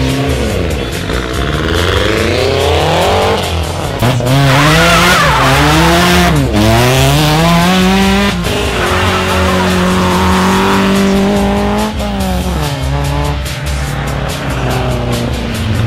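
Rally car engines at hard throttle, the pitch climbing and then dropping sharply again and again as the gears change.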